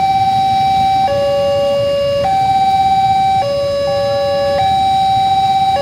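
Railway level-crossing warning alarm sounding, an electronic signal switching between a higher and a lower tone about every second. It warns that a train is approaching the crossing. The low rumble of waiting motorbike and car engines lies underneath.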